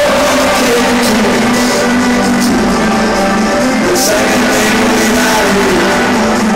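Live concert music played loud over a stadium sound system, with a sung melody over a steady held chord.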